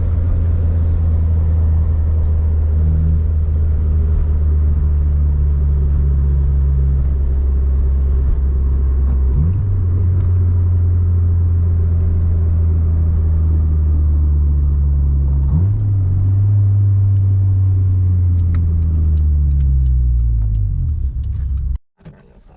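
Inside the cabin of an EK Honda Civic hatchback at road speed: a steady low engine and road drone with a hiss of wind over it. The drone steps up in pitch twice, then slides down near the end as the car slows. The wind noise comes through the driver's door, which the driver later finds was not shut properly.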